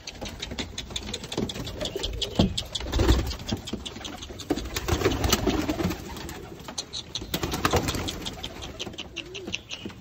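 Domestic pigeons cooing, with many quick light clicks and taps throughout.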